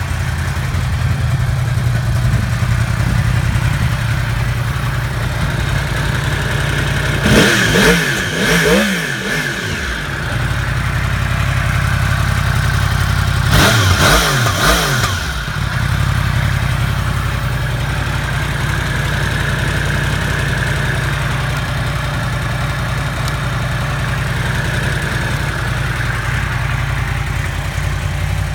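2015 Yamaha R1's 998 cc crossplane inline-four idling steadily, revved twice: about seven seconds in the pitch climbs and falls back to idle over a couple of seconds, and a shorter rev follows at about fourteen seconds.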